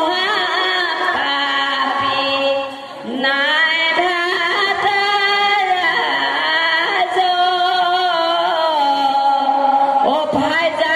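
Bhaona song: a voice singing in a slow, chant-like style with long held, wavering notes, with a short break between phrases about three seconds in.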